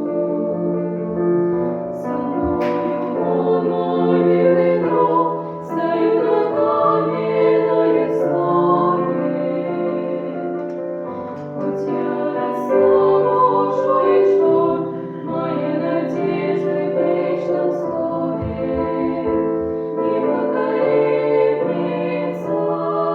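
Christian song: voices singing a slow melody over piano accompaniment.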